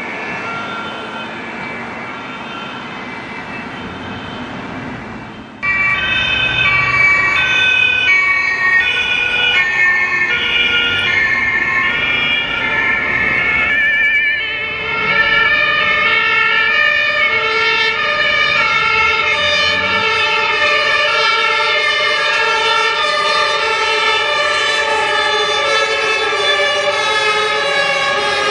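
German two-tone emergency-vehicle sirens (Martinshorn) sounding on a response run over road traffic noise. Faint at first, one siren comes in loud and sudden about five seconds in, and a second siren at a different pitch joins a little before halfway, the two alternating tone pairs overlapping.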